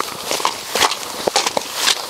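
Footsteps crunching on loose gravel, a quick uneven series of steps.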